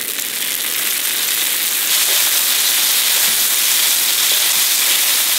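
Olive oil sizzling as it hits spaghetti on a hot griddle pan, a loud hiss that builds over the first two seconds and then holds steady.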